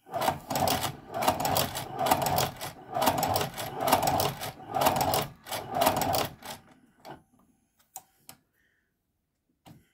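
Hand-cranked shoe patcher sewing machine stitching through a leather strap: a rhythmic clatter of needle and shuttle strokes for about seven seconds, then it stops, leaving a couple of single clicks.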